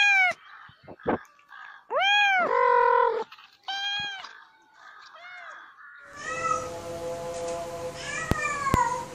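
A cat meowing: four drawn-out meows in the first five seconds or so, the second one loudest. Near the end a single falling meow sounds over a steady hum, with two sharp clicks.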